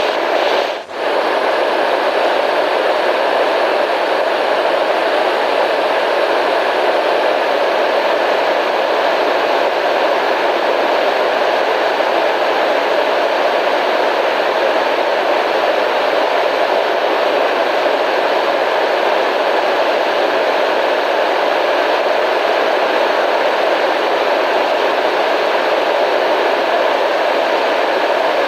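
Steady white noise, an even hiss that stays the same throughout, with a brief dip in level just under a second in.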